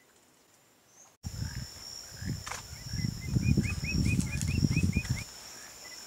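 Lineated woodpecker giving a rapid series of about ten short, rising call notes, over a steady high insect drone and a loud low rumble that stops about a second before the end.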